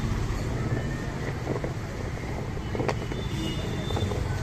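Steady low background rumble, with soft knocks and rustles as hands toss raw potato sticks in flour in a plastic tray; one sharper knock comes about three seconds in.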